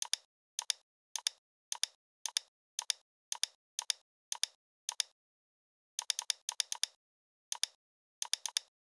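Computer mouse clicking, each click a quick press-and-release pair: about ten evenly spaced clicks at roughly two a second, then a pause, a fast run of clicks about six seconds in, and a few more near the end.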